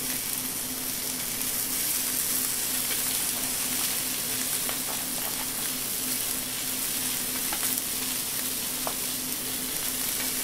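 Chicken wings sizzling in oil in a frying pan, a steady hiss, with a few light clicks as more pieces are laid in with chopsticks.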